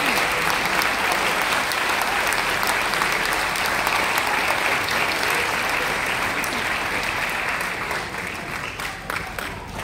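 Audience applauding steadily, then dying away near the end to a few scattered claps.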